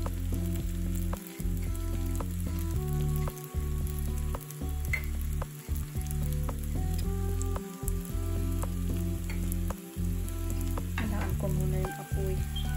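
Sugar-coated turon rolls frying in shallow oil over low heat in a nonstick pan, sizzling steadily with scattered small pops. Under it a low hum runs and drops out briefly every second or two.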